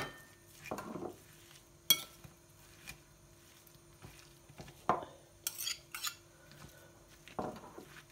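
Metal spoon clinking and scraping against a ceramic plate while stirring raw minced meat and chopped vegetables: a sharp clink at the start, then a few separate clinks and scrapes.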